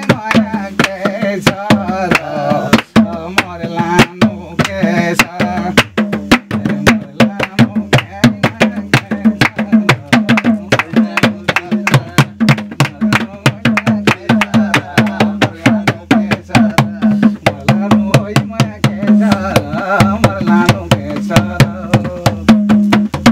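Madal hand drum played in a fast, steady rhythm, with a man singing a Nepali jhyamre folk song over it at the start and again near the end.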